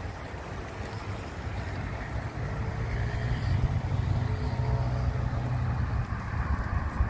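Wind buffeting the microphone outdoors: a steady low rumble that grows a little stronger after about two seconds.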